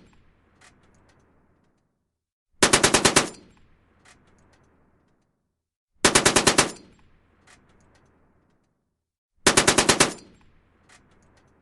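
M1919 Browning belt-fed machine gun firing three short bursts of about seven rapid shots each, roughly three and a half seconds apart, each trailing off into a fading echo.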